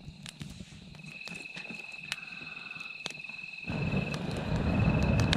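A steady, finely pulsing high trill from an insect starts about a second in, over scattered sharp crackles from a freshly lit campfire. About two-thirds of the way through, a loud low rushing noise sets in and covers the rest.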